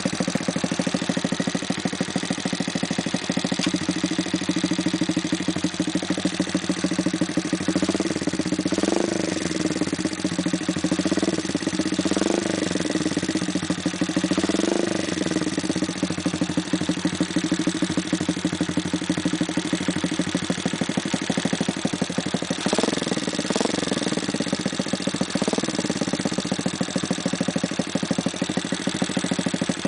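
Honda motorcycle engine idling through an Over Racing GP Performance aftermarket silencer, with short throttle blips: several about a third of the way in and two more about three-quarters of the way through.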